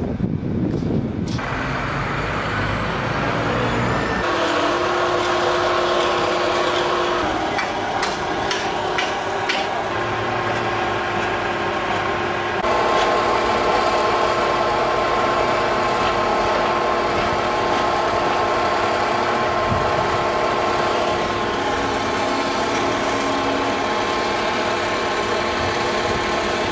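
Construction-site crane machinery running: a steady mechanical whine and hum that shifts to a higher, louder pitch about four seconds in and again about halfway through. A few sharp knocks come around eight to ten seconds in.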